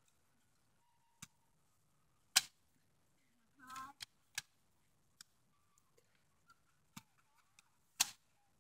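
Toy Nerf dart blasters clicking and snapping as they are primed and fired: about half a dozen sharp clicks at irregular intervals, the loudest a little over two seconds in and again near the end. A child's short call sounds around four seconds in.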